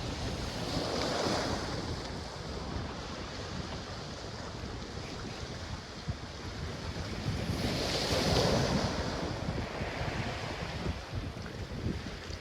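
Waves washing up on a black sand beach, two swells surging in about a second in and again about eight seconds in, with wind buffeting the microphone throughout.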